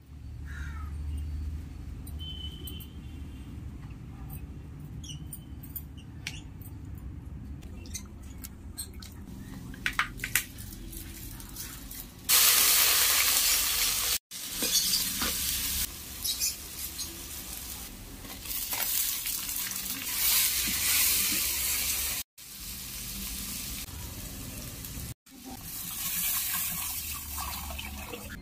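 Hot oil sizzling in a clay pot as chopped onions fry. The sizzling starts suddenly about twelve seconds in and is broken by a few abrupt gaps. Before it there are only faint clicks and handling sounds.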